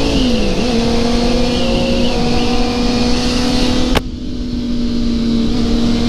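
Sport motorcycle engine at steady cruising speed, heard from the rider's seat with wind rushing over the microphone. The engine note dips briefly about half a second in, then holds a steady, slightly lower pitch. A sharp click about four seconds in is followed by a quieter wind rush.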